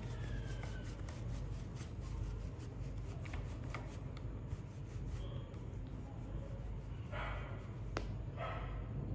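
Rustling and scratching with light clicks as a kitten and a rabbit move about in a plastic basket of toys, over a steady low hum. Two short rasping scuffs come near the end, with a sharp click between them.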